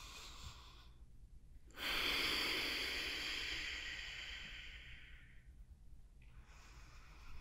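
A woman breathing audibly through a yoga bridge-pose cycle: a long breath out starts about two seconds in and fades away over some four seconds as she lowers her hips, then a softer breath in begins near the end as she starts to lift again.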